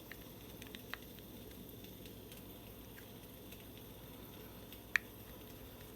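Faint small clicks and taps of a small flathead screwdriver against plastic lid parts as a rubber mouthpiece part is worked through its hole, with one sharper click about five seconds in, over a steady faint hiss.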